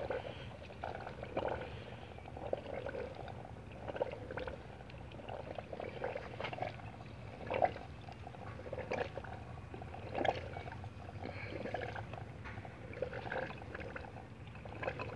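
Water trickling and gurgling inside a homemade PVC-pipe hydroponic system, with irregular small splashes and drips over a faint steady low hum.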